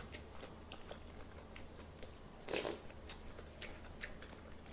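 Quiet mouth sounds of a person chewing a spoonful of food, with faint wet clicks and one louder smack about two and a half seconds in.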